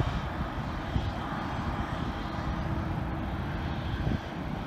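Boeing 777 airliner's jet engines on approach to land, a steady rushing noise over an uneven low rumble.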